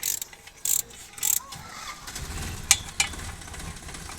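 Mechanic's hand tools being worked: short rasping, ratchet-like bursts and a couple of sharp metal clicks. Under them a steady low rumble starts about halfway through.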